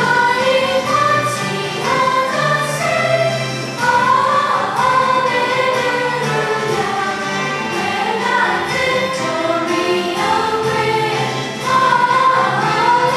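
Choir singing a hymn with instrumental accompaniment.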